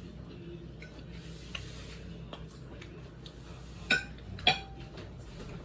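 Two sharp clinks of dishes or cutlery about half a second apart, each with a brief ring, over a low steady hum and a few faint ticks.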